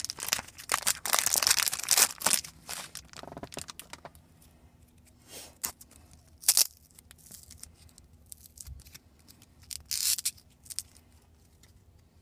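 A wrapper on a jumbo pack of trading cards being torn open and crinkled: dense crackling for the first two seconds or so, then scattered rustles and a few short crackles as the cards are handled.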